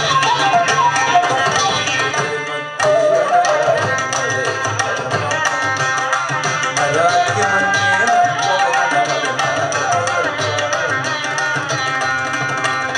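Carnatic ensemble music led by a mridangam, the two-headed barrel drum struck in fast, dense strokes, with a melody gliding above it. The music thins briefly a little before three seconds in, then comes back at full strength.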